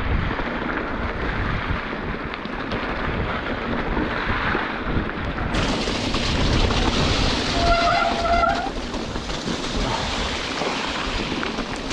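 Mountain bike ride through a tropical rainstorm: a steady rush of rain and wind buffeting the microphone, with the bike and tyres rolling over the wet trail underneath. A short whine sounds about eight seconds in.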